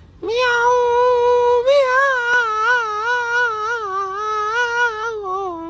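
A woman singing one long held high note, starting about a quarter second in, first steady and then with a wide wobbling vibrato; the pitch sinks a little near the end.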